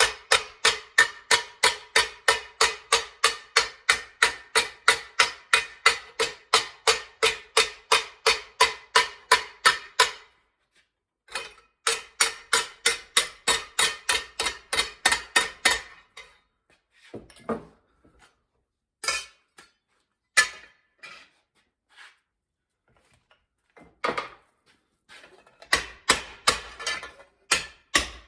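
Hammer striking sheet metal held in a vise, hand-forming a rust-repair patch: quick, even blows about three a second, each with a metallic ring. The blows break off about ten seconds in, resume for a few seconds, then come as scattered single strikes before a last quick run near the end.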